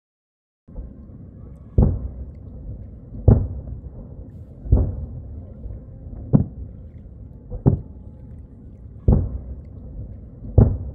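Fireworks shells bursting about 1.75 miles away across a lake: seven booms, roughly one every one and a half seconds, over a low rumble. The booms carry no sharp crack or high end.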